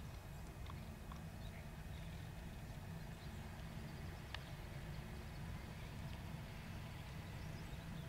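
Faint, steady low drone of a distant self-propelled forage harvester working through maize, with a few faint ticks, one sharper tick about halfway through.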